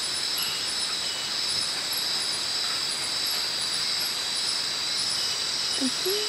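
Night-time rainforest insect chorus: a steady, high-pitched drone of crickets and other insects, with faint short chirps repeating over it. A brief low sliding call comes near the end.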